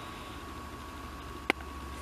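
A single sharp click about one and a half seconds in, from hands handling a small object, over a steady high tone and a low hum.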